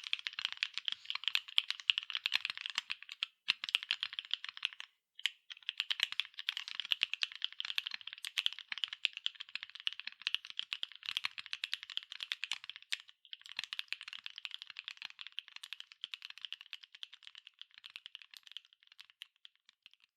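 Fast, continuous typing on a NEO70 mechanical keyboard with MMD Cream V4 linear switches, an aluminium plate and PBT double-shot keycaps: a dense stream of key clacks with a few brief pauses.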